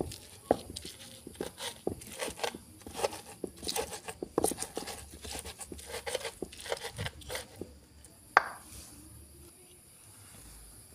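Pestle crushing and grinding chilies and other fresh ingredients in a mortar: irregular knocks and scrapes, with one sharper knock about eight seconds in, after which it stops.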